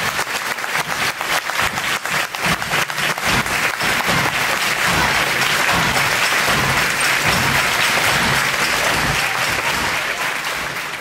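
Theatre audience applauding, at first clapping in a rhythm, then breaking into dense, steady applause after about four seconds.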